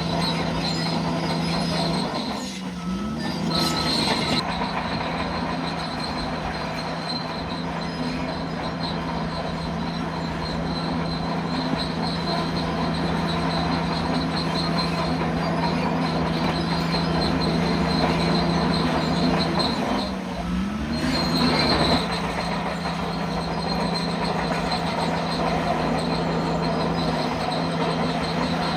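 Bulldozer working: its diesel engine runs steadily, with a high-pitched squeal over it. Twice, about 3 seconds in and again about 21 seconds in, the engine note dips and climbs back.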